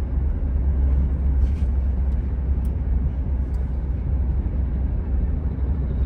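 Inside a moving car: steady low rumble of the engine and tyres on the road.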